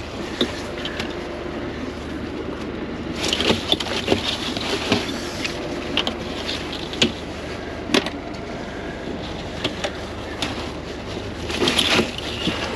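Boat engine running steadily, with repeated sharp knocks and clatter of gear being handled on deck, bunched into two busier spells.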